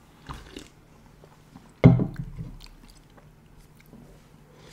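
Sips and swallows of fizzy melon cream soda drunk from a can, with one sudden, louder short sound a little under two seconds in.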